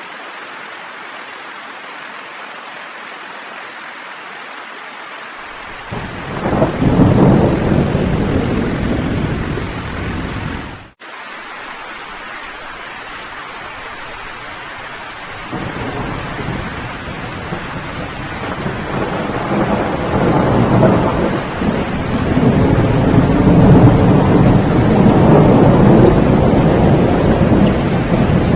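Steady rain with rolling thunder: a first roll of thunder swells in about five seconds in, the sound cuts out for an instant around eleven seconds, and a second, longer roll builds up and is loudest near the end.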